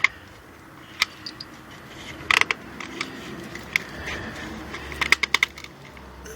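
Sharp plastic clicks and rattles, some single and some in quick clusters, as the engine wiring harness's plastic retainer clips are pried up off their mounting studs on the valve cover.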